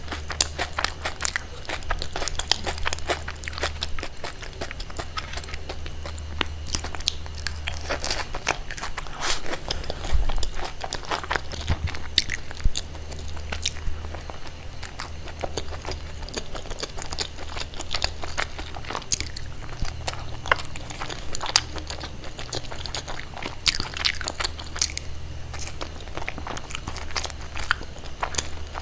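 Close-miked eating: crunchy bites and chewing, with many sharp crunches throughout, over a low steady hum.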